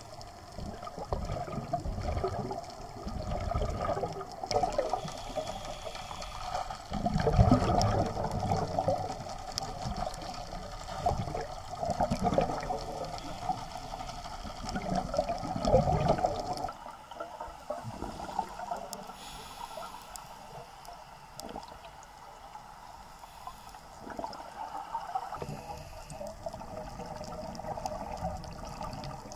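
Underwater sound of scuba divers exhaling through their regulators: bubbles rumbling and gurgling in irregular surges every few seconds, quieter after about seventeen seconds in.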